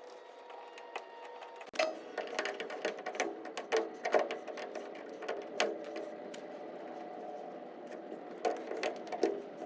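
Irregular metallic clicks and clanks of rudder pedal hardware being unpinned and shifted to a different adjustment hole, starting about two seconds in, with a few louder knocks near the end.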